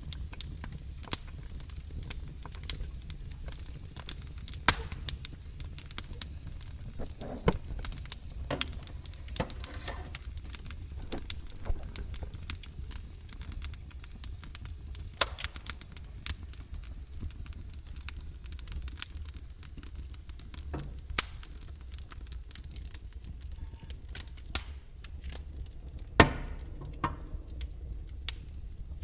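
Wood logs burning in a fireplace, crackling with irregular sharp pops over a low steady rumble; the loudest pop comes near the end.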